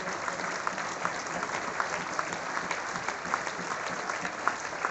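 Crowd of spectators applauding steadily, with a few nearby individual claps standing out sharply above the general clapping.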